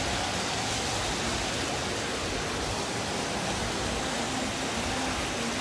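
Steady rushing hiss of water splashing in a decorative sea-creature fountain.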